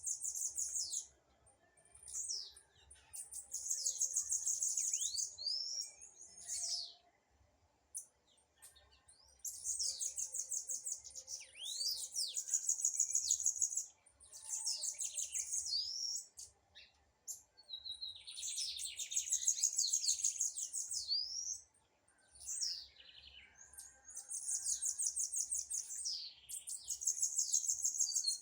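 Blue-black grassquit (tiziu) singing: high, rapid buzzy trilled phrases of about two to three seconds each, repeated with short pauses, some ending in quick downward sweeps. A lower-pitched trill joins twice, about two-thirds of the way through and at the end.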